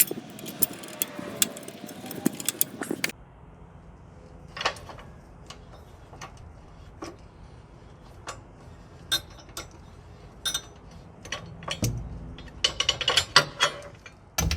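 Socket ratchet clicking as a 14 mm bolt on a truck battery hold-down bracket is loosened: rapid clicks for about three seconds, then scattered metal clicks and clinks, with a short flurry near the end.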